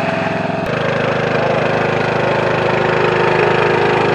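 Riding lawn mower's small engine running steadily, its note changing abruptly just under a second in.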